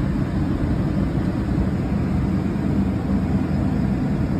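Steady low rumble of a car heard from inside the cabin, with nothing else standing out.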